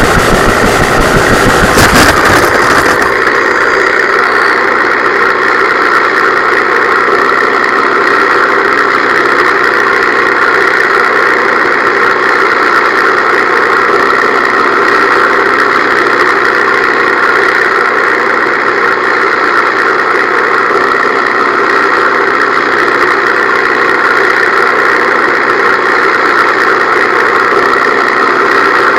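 A T-28 model airplane's motor and propeller run with a steady drone. A louder rushing noise covers the first few seconds, then falls away to the even hum.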